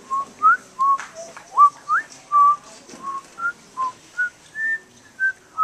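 Someone whistling a tune: about a dozen short clear notes, several sliding upward and a couple held a little longer, with no accompaniment.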